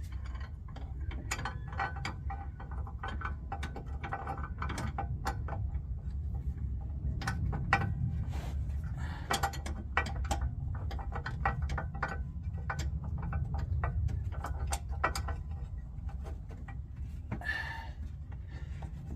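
Many small, irregular metal clicks and scrapes of hand-fitting bolt hardware on a skid plate bracket, over a steady low rumble.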